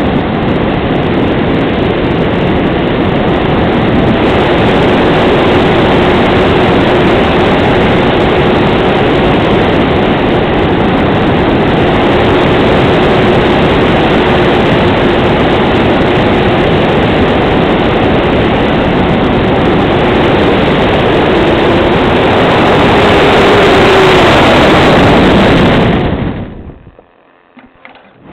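Rushing airflow over the onboard camera microphone of a gliding Grunau Baby in flight, a loud steady rush with a faint steady tone through the middle. Near the end the sound drops almost away for a couple of seconds, then comes back.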